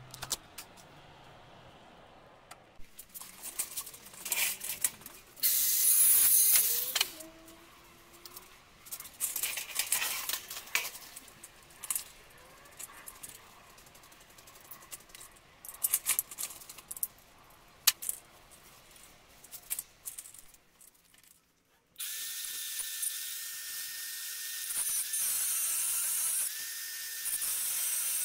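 Scattered clicks, knocks and rattles of parts being handled, then near the end a Metabo angle grinder starts abruptly and runs steadily with a high whine against a steel tube, its pitch dipping twice as the disc is pressed in.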